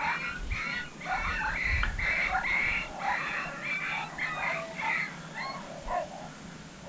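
Coyote yips, whines and squeals in a rapid, unbroken run of short calls that slide up and down in pitch, getting fainter toward the end.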